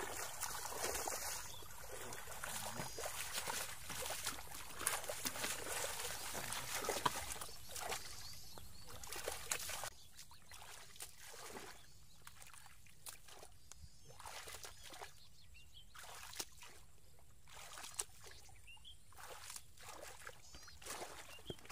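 Hands splashing and sloshing in shallow, muddy water while groping through the mud, with irregular small splashes and trickles. The splashing is busier for the first ten seconds, then quieter and sparser.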